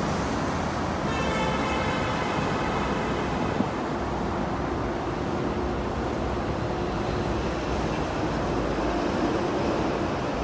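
MTR East Rail Line electric train running out of the platform, with steady running noise and a high whine starting about a second in and lasting about two seconds.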